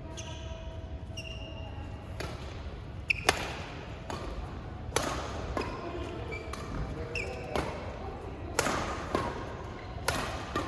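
A badminton rally: rackets strike the shuttlecock in sharp cracks about once a second, with short squeaks of shoes on the court in between.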